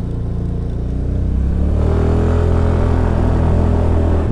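Suzuki Burgman Street 125 scooter's single-cylinder engine running under way. Its note rises a little about one and a half seconds in as it picks up speed, then holds steady.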